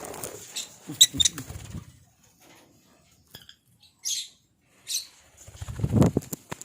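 Lovebirds fluttering their wings in short bursts, with two brief high-pitched chirps in the middle.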